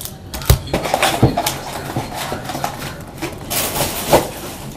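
A cardboard trading-card hobby box being handled on a desk: two sharp knocks in the first second and a half, with scraping and rustling in between and a burst of rustle later on.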